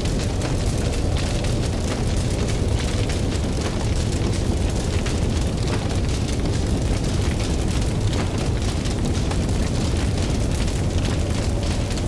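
Large building fire burning: a steady low roar with many sharp crackles and pops.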